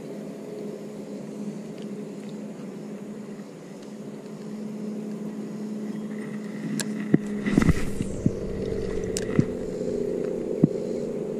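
Spinning reel being cranked to retrieve line, a steady mechanical whirr, with a few sharp handling clicks in the second half and a short rush of noise a little after halfway.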